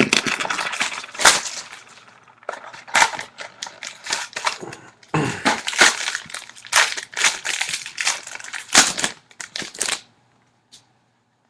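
A cardboard mini box of trading cards being torn open and the cards handled: irregular sharp crackling and snapping that stops near the end.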